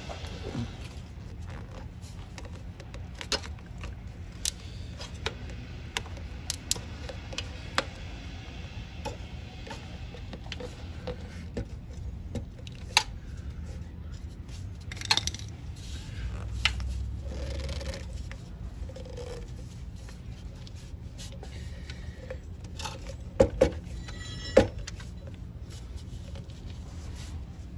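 Rubber intake hose on a 1968 Honda CT90's carburetor being twisted and worked loose by hand: scattered light scrapes and clicks of rubber and metal parts, with a few sharper clicks near the end.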